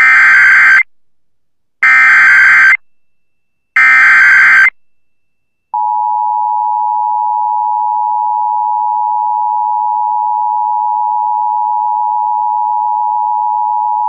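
Emergency Alert System tones on an FM radio broadcast: three short bursts of the SAME digital data header about a second apart, then, from about halfway through, the steady dual-tone EAS attention signal. Together they announce a severe thunderstorm warning.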